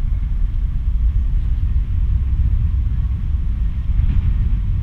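Heavy low rumble of wind buffeting the microphone on a moving ship's open deck, fluctuating unevenly, with no speech over it.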